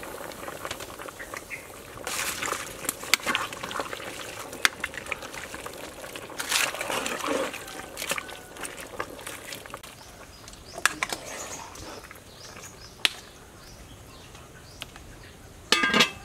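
Metal ladle stirring vegetables in a pot of hot soup, with a few bouts of scraping and sloshing and some sharp clicks. Near the end a metal lid is set on the pot with a loud clang that rings briefly.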